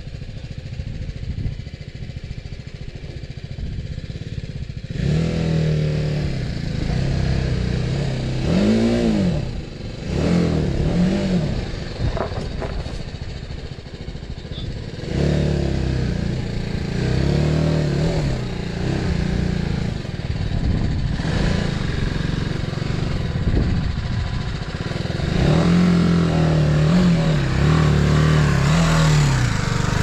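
Bajaj Dominar 400 single-cylinder motorcycle engine under way, quieter for the first few seconds and then louder, its pitch rising and falling again and again as the throttle is opened and closed through the gears, over a steady low rumble and some clatter from the ride.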